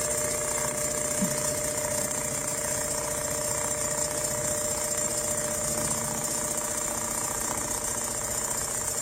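Richpeace automatic CNC sewing machine running at a steady speed: an even motor hum over a fast mechanical rattle of the stitching mechanism.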